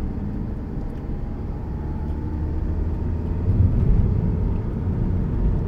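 Car engine and road noise heard from inside the moving car's cabin: a steady low rumble with a faint whine slowly rising in pitch. The rumble grows louder about three and a half seconds in.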